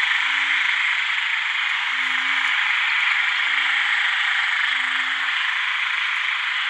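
Chorus of male red frogs (ueng daeng, a narrow-mouthed frog) calling to attract females after heavy rain: a dense, steady chorus with nearer low calls repeating about every second and a half.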